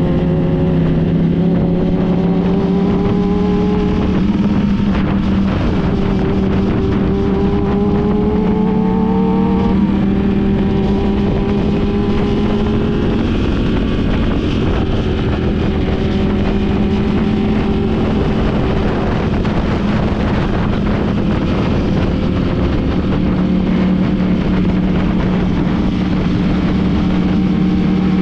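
Motorcycle engine running under way, its pitch climbing slowly and dropping back twice in the first ten seconds as it shifts up, then holding steady at cruising speed over a constant rush of riding noise.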